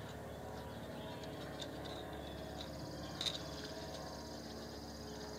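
Small metallic clicks from steel drum brake shoes, adjuster and springs being handled and fitted, with one sharper click about three seconds in. A steady low hum runs underneath, and a thin high trill sounds through the second half.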